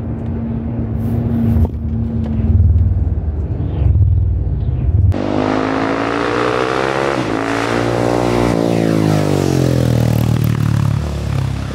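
Low, steady engine and road rumble inside a Winnebago Travato camper van driving a winding mountain road. About five seconds in it cuts to a motorcycle engine going past on a curve, revving with its pitch sliding down and then back up.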